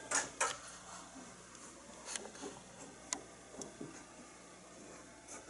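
Quiet room tone broken by a few scattered sharp clicks and light knocks, two close together right at the start and single ones about two, three and three and a half seconds in.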